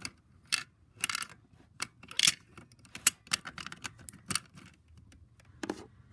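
Irregular light clicks and taps of small plastic toys being handled, with a few short rustles.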